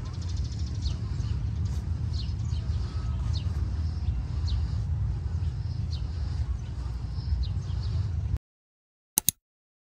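Small birds chirping, short high calls repeating every half second or so, over a steady low rumble of the walker's breathing and wind on the microphone. The sound cuts off about eight seconds in, and two quick clicks follow.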